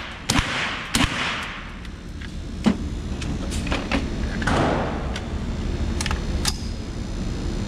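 Gunshots at a shooting range: two loud, sharp shots about two-thirds of a second apart near the start, each with a short echo, then a string of fainter, irregularly spaced shots.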